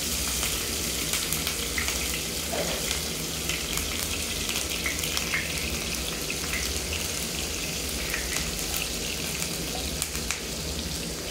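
Chopped green chillies sizzling in hot oil in a non-stick kadai: a steady hiss with many small crackles, stirred with a wooden spatula.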